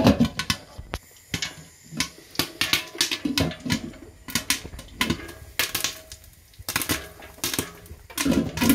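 Popcorn kernels popping inside a covered stainless steel pot: an irregular run of sharp pops, several a second.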